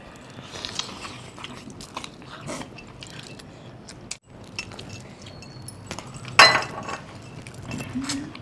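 Close-up eating sounds: cooked chicken torn from the bone by hand and teeth and chewed, with scattered small clicks and clinks. There is one loud sudden noise about six and a half seconds in.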